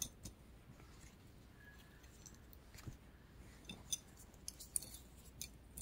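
Mostly quiet handling of an elastic mesh car-trunk cargo net, with a few faint, scattered clicks and light rustling as a hand moves and folds the net.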